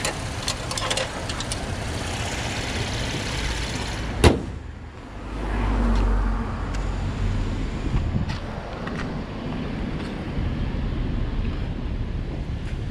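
Urban street traffic going by, with a vehicle's low rumble swelling and fading around the middle. Light clicks come in the first second or so, and one sharp knock about four seconds in.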